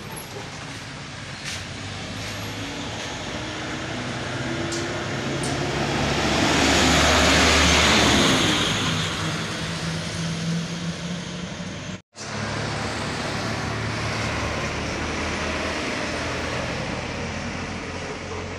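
Trucks passing on a road: a steady engine drone with tyre noise that swells to a loud pass about seven to eight seconds in and fades. After a brief dropout about twelve seconds in, another truck's engine drone goes on steadily.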